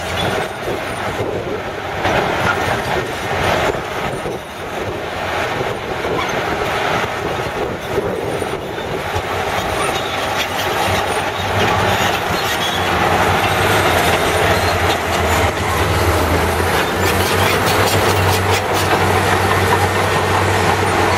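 Caterpillar D6D crawler dozer working rock, its diesel engine running under load while the steel tracks clank and the blade scrapes and breaks the ground. About halfway through, a steadier, deeper engine drone takes over: the Case 821B wheel loader's diesel moving with a full bucket.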